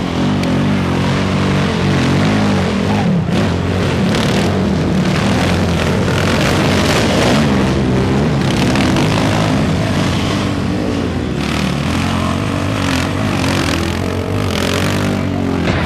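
Race quad's engine revving hard and unevenly, its pitch rising and falling, while the ATV's rear tyres spin on loose dirt on a steep hill climb.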